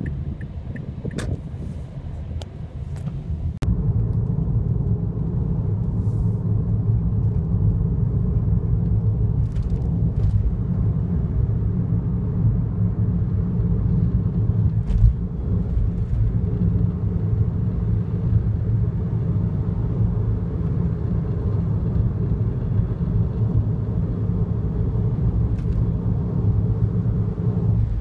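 Steady low road and engine rumble of a car at highway speed, heard from inside the cabin, with a few light clicks in the first few seconds; the rumble grows louder about four seconds in.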